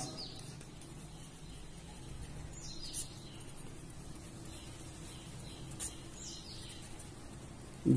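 Felt-tip marker writing on paper: faint, scattered squeaks and scratches of the tip over a low steady hum.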